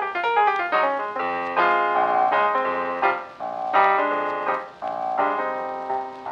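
Background piano music: quick runs of notes and held chords.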